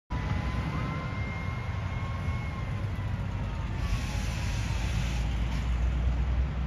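Steady low rumble of outdoor highway noise, with a vehicle's tyre hiss swelling and fading about four seconds in. A faint thin tone slowly falls in pitch over the first few seconds.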